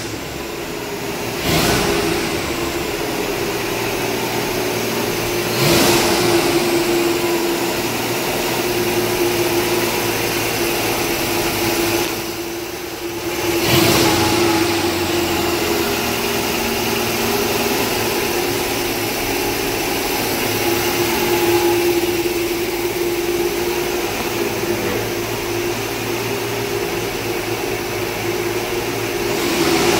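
The freshly rebuilt Ford 300 straight-six of a 1965 Mercury M100 pickup running just after start-up, with a steady tone over the engine noise. It surges briefly a few times, about a second in, around six seconds and around fourteen seconds.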